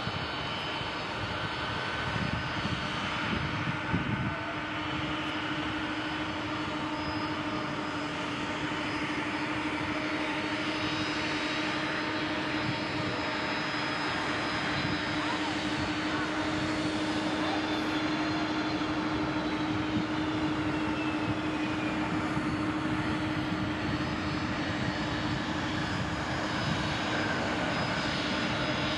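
Twin-engine jet airliner's turbofan engines on approach and landing: a steady jet rumble with a held whine, and a high tone that glides slowly downward about two-thirds of the way through.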